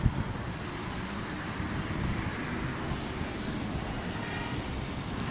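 Steady outdoor background noise with a low, uneven rumble and a faint, high, steady whine, opening with a sharp click.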